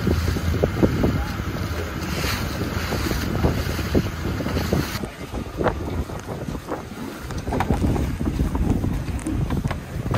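Wind buffeting the microphone aboard a boat in choppy water, with sea and boat noise beneath. The sound changes abruptly about halfway through.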